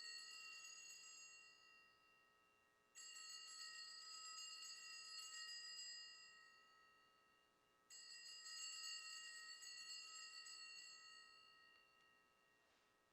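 Altar bells rung at the elevation of the host after the words of consecration. A ring is already fading at the start, then two more rings come about 3 and 8 seconds in, each bright and metallic and slowly dying away.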